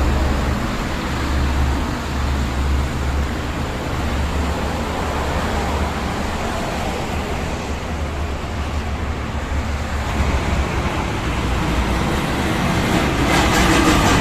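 Continuous highway traffic noise on a toll road: tyre and engine noise from passing vehicles with a heavy low rumble. It grows louder near the end as a heavy vehicle passes close.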